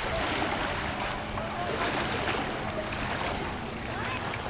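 A steady wash of outdoor wind and moving-water noise, with a faint low hum under it and faint distant voices.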